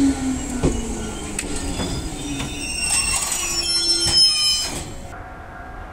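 Enshu Railway electric train pulling into the station: its motor whine falls in pitch as it slows, then the brakes squeal with clicks from the wheels, and the squealing cuts off suddenly about five seconds in as the train comes to a stop.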